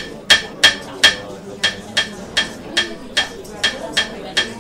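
Hammer knocking in a nail with steady, even blows about two and a half a second, each with a short metallic ring. The blows turn quieter about a second and a half in.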